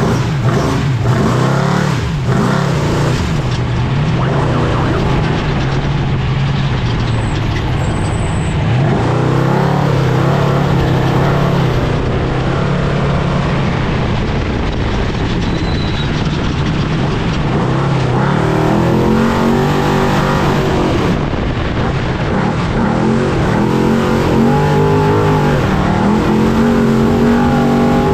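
Trophy truck's engine running hard at race pace, heard onboard over the rush and rattle of the truck driving off-road. The revs rise and fall, climbing several times in the last ten seconds.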